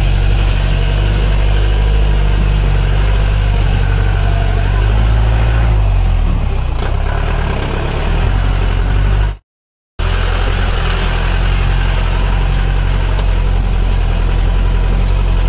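Jeep engine running under load, heard from inside the jeep as it crawls over wet rock. The engine note drops about six seconds in, and the sound cuts off for half a second just past the middle.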